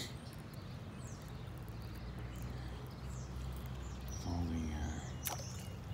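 Fishing reel cranked steadily during a spinnerbait retrieve, a low even whir, with faint bird chirps above it. A short voiced hum about four seconds in and a sharp click a second later.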